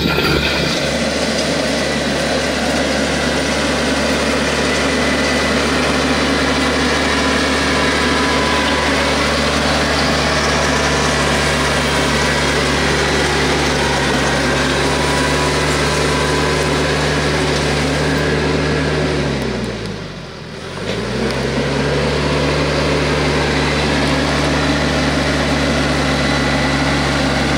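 TYM compact tractor's diesel engine running steadily while pulling a land plane across gravel. About twenty seconds in, the engine note briefly drops in pitch and loudness, then comes back up.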